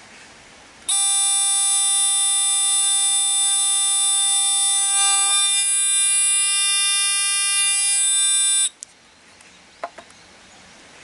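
Buzzer of a homemade 3 V transistor rain alarm sounding one loud, steady, continuous tone for about eight seconds: water sprinkled on the wire-grid sensor has set the alarm off. It starts suddenly about a second in and cuts off abruptly, followed by a few faint handling clicks.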